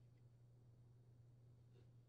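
Near silence: room tone with a steady low hum and one faint tick near the end.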